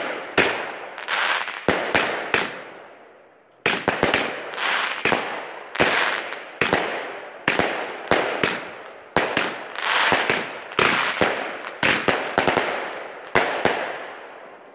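Nico Metal Shots compound firework cake firing shot after shot, roughly two sharp bangs a second, each trailing off quickly. There is a pause of about a second some two and a half seconds in, and the last shot fades out near the end.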